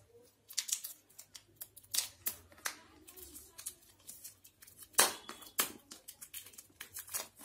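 A razor blade slitting and scraping the plastic shrink-wrap on a tablet box: a run of short, sharp scratching clicks, the loudest about five seconds in.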